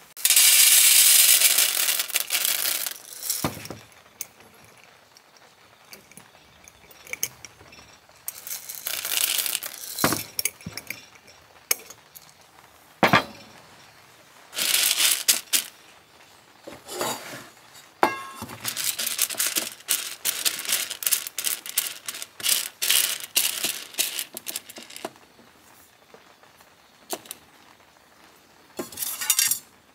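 Green coffee beans rattling and clinking against a stainless steel tray as hands sort through them before roasting. The sound comes in irregular bursts, with a few sharp clicks and the loudest burst in the first few seconds.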